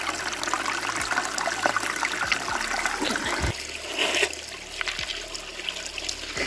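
Spring water trickling and splashing down off mossy rocks and over a cupped hand, a steady running-water sound.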